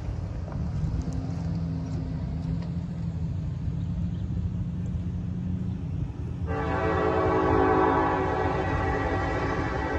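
Diesel locomotive air horn sounding one long blast, starting about two-thirds of the way in and held for several seconds, over the steady low rumble of an approaching freight train.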